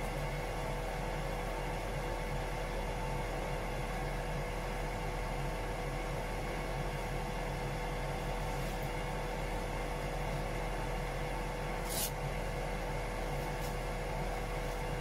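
Engine-room machinery running steadily: an even mechanical drone with a constant hum and a held mid tone, and one short click about twelve seconds in.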